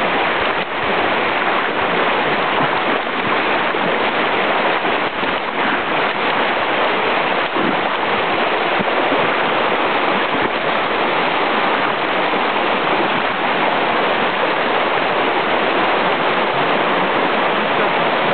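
Fast river rapids rushing over rocks, a steady, even wash of water noise.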